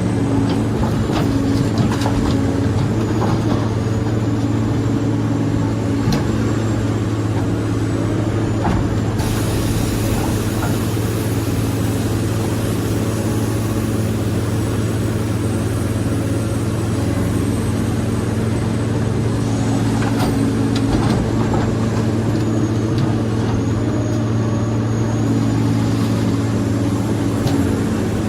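Excavator diesel engine running steadily, with scattered short knocks. A steady hiss joins about a third of the way in.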